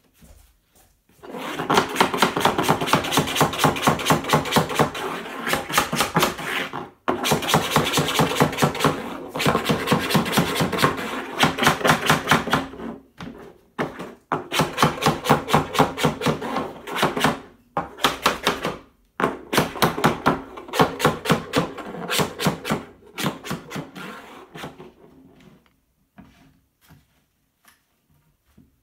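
Soft-faced mallet tapping rapidly on a cherry wood slab, knocking its cracked pieces into line. The blows come about four a second in runs with short pauses and stop a few seconds before the end.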